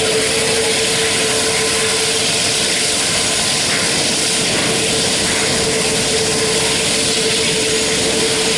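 Airbus A380-800 jet engines running with a steady, loud noise and a constant tone underneath.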